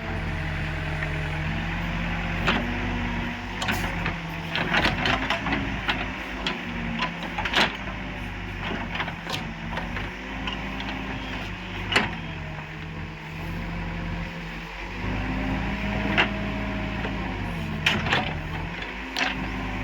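Backhoe loader's diesel engine working under changing load, its pitch dipping and recovering several times, with scattered clanks and knocks from the digging and loading.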